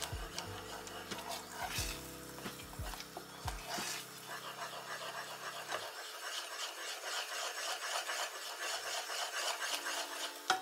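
Wooden spoon stirring and scraping a thick, pasty kaymak mixture of milk, cream and starch in a nonstick saucepan, in a quick run of wet scraping strokes. The mixture has cooked down to a heavy paste, the sign that the kaymak is done. Soft background music plays under the first half.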